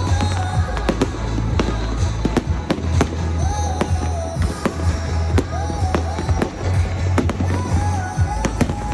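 Fireworks display going off in rapid succession, a dense run of sharp bangs and crackles with no pause. Music plays underneath with a steady heavy bass and a wavering melody line.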